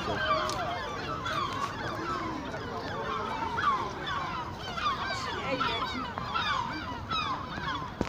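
A dense chorus of many birds calling over one another: short squawks and chirps that rise and fall in pitch, overlapping with no break.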